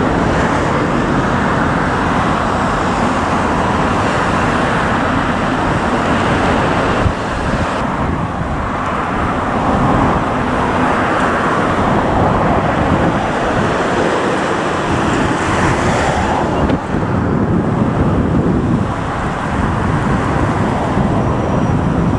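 Jet engines of a Boeing 737 MAX 8 running at takeoff thrust as it lifts off the runway. After a cut about seven seconds in, a steady rushing noise continues.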